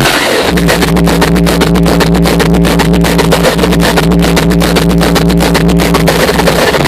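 Loud hardstyle dance music with a heavy, sustained bass line whose notes change right at the start and again near the end.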